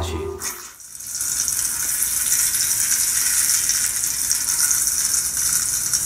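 Bacon sizzling in a frying pan, used as a rain sound effect: a steady, high hiss that starts about a second in.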